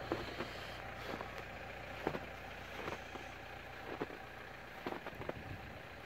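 Footsteps crunching in deep fresh snow, an uneven series of soft crunches, over a steady low rumble.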